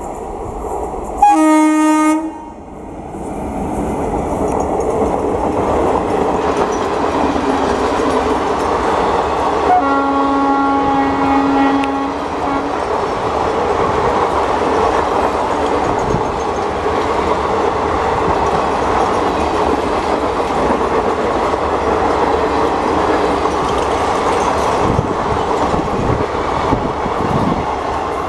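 Indian Railways WAP-4 electric locomotive sounding its horn twice: a short blast about a second in and a longer one of about two and a half seconds about ten seconds in. Between and after the blasts, the steady running noise of its passenger coaches' wheels on the rails as the train passes.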